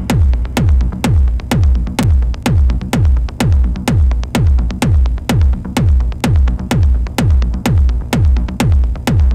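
Industrial techno: a heavy electronic kick drum strikes a little over twice a second, each hit sliding down in pitch, with lighter hi-hat ticks between the kicks.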